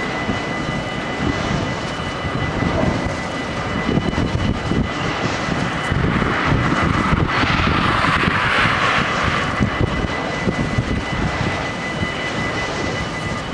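Freight train of hopper wagons rolling over a level crossing, its wheels rumbling and clattering, while the crossing's warning bells ring as a steady high tone. A rushing hiss swells for a few seconds midway.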